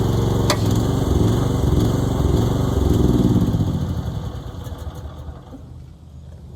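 Mini excavator engine running steadily, then shut down about four seconds in, winding down to a stop. A sharp click is heard near the start.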